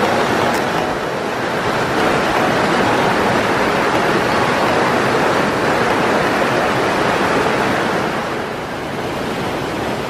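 Waterfall and rocky mountain stream: a steady rush of falling and flowing water, a little quieter near the end.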